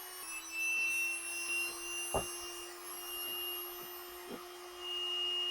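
Dremel rotary tool running at a steady high speed and grinding, with a sharp knock about two seconds in and a lighter one near four seconds.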